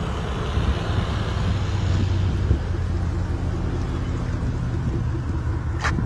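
Steady low rumble of wind and highway vehicle noise, with a low engine hum through the middle seconds and a single sharp click near the end.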